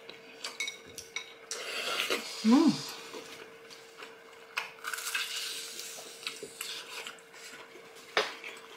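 Cutlery and dishes clinking and scraping while eating, in scattered short knocks and scrapes. A short tone that rises and falls about two and a half seconds in is the loudest sound.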